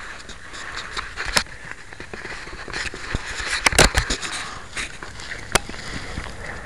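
Handling noise picked up by a model rocket's onboard camera: fabric rustling against the rocket body, with scattered clicks and knocks and a cluster of loud knocks about four seconds in.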